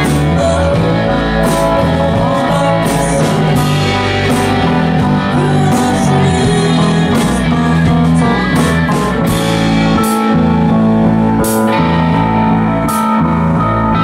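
Live rock band playing: keyboard, electric bass guitar and drum kit, with cymbal strikes throughout.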